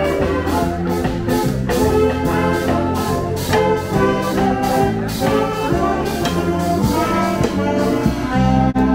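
A large saxophone ensemble playing a jazzy tune together, with a drum kit keeping a steady beat.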